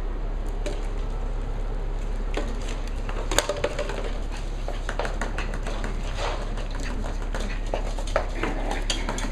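Cavalier King Charles spaniel puppies scampering about on a hardwood floor, their claws clicking and pattering irregularly, with one louder knock about three and a half seconds in.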